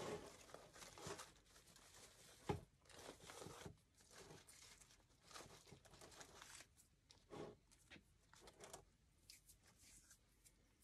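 Faint, irregular rustling and crackling of greenery stems being pushed into a thick, tight grapevine wreath, with a single knock about two and a half seconds in.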